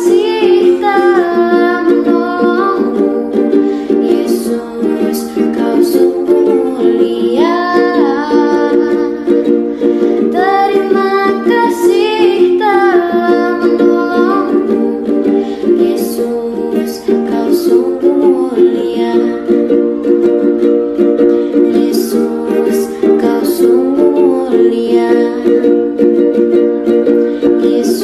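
A home recording of a singer with a plucked string accompaniment, recorded in a small room. The sung phrases come and go over the steady accompaniment.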